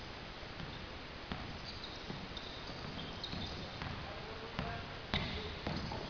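A basketball bouncing on an indoor gym court, several separate bounces at irregular intervals, with short high-pitched sneaker squeaks in between.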